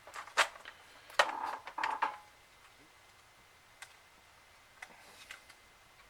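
Small plastic clicks and taps from fingers working a laptop's ribbon cables into their connectors and flipping the little latch tabs: a cluster of sharp clicks in the first two seconds, then a few faint ticks.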